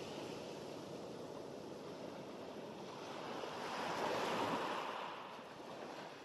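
Sea surf: small waves breaking and washing up a sandy beach, a steady rushing wash that swells louder about four seconds in and fades out at the end.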